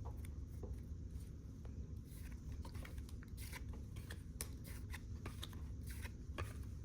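Trading cards being handled and slid one behind another through a freshly opened pack: soft, irregular clicks and flicks of card stock over a low room hum.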